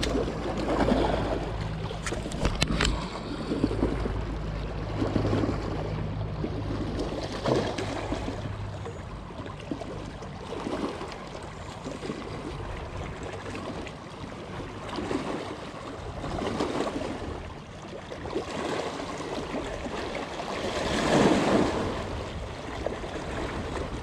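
Small lake waves lapping and splashing against shoreline rocks in uneven surges every second or two, the biggest near the end. A low wind rumble sits under the first third, with a few sharp clicks near the start.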